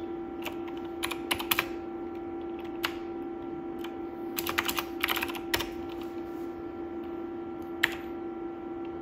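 Keystrokes on the Dolch PAC 60's keyboard, typed in short bursts as a command is entered and the output paged, with one sharper key press near the end. A steady hum runs underneath.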